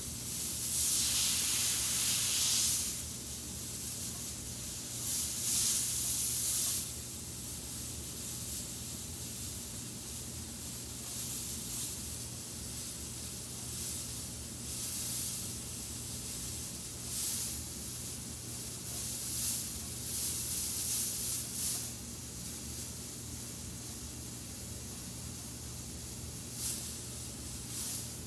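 Airbrush spraying paint in hissing bursts: a long spray over the first three seconds, another from about five to seven seconds in, then a series of short spurts. A steady low hum runs underneath.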